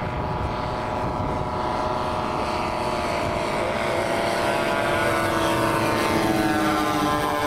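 Propeller engines of several radio-controlled scale model aircraft running together in a fly-past, their overlapping notes sliding slowly down in pitch as the planes go by.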